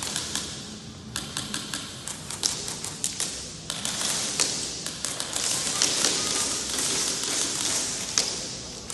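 Airsoft guns firing in rapid strings of sharp clicks, several volleys overlapping.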